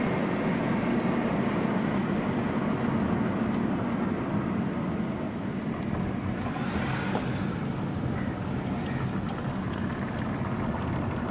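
Honda Civic's 1.8-litre four-cylinder engine running steadily, mixed with road noise. A brief rushing sound comes about halfway through.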